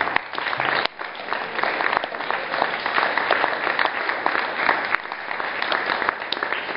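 An audience applauding: many hands clapping at once, dying away at the very end.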